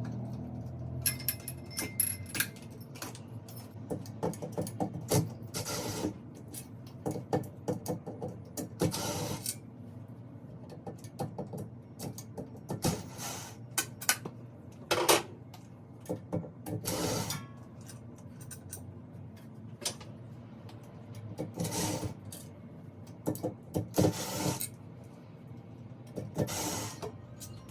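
Hand work on a ceiling fan installation: irregular clicks and knocks of tools and metal hardware, with several short scraping and rubbing sounds.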